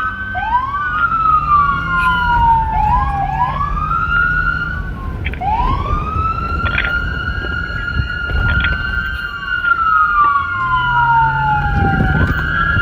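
Several police car sirens wailing at once, out of step with each other. Each tone rises quickly, holds, then slowly falls before rising again. A low rumble runs underneath.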